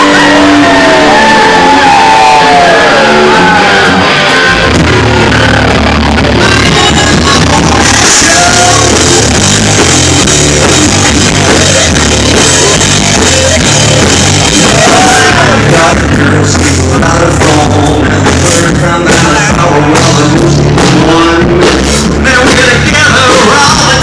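Live rock band playing the opening of a song, loud. It starts lighter, and the full band comes in heavily about five seconds in, with singing over it.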